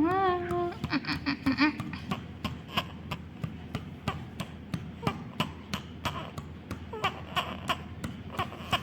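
A hand patting a baby's body in quick light taps, about three a second, as part of a massage to loosen phlegm in a baby with a cough and cold. In the first two seconds the baby makes a brief cooing sound and a few short giggles.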